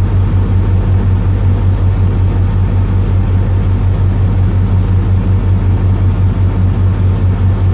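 Diesel truck engine idling: a steady low drone with an even pulsing, keeping up the air supply to the cab air bags while the levelling valve is adjusted.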